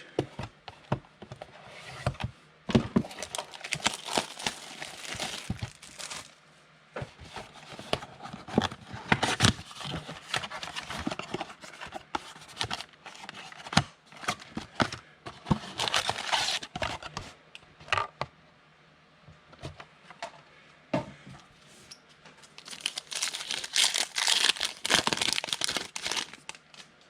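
Plastic wrapper of a football trading-card pack being torn open and crinkled, in several bursts of crackling with sharp clicks between them.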